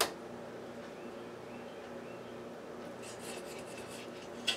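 Kitchen knife slicing raw chicken breast into strips on the counter: a sharp tap of the blade at the start, faint scraping strokes about three seconds in, and another sharp tap near the end, over a steady low hum.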